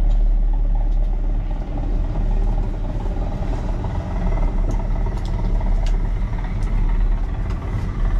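Steady low rumble of a running vehicle, with a few faint clicks.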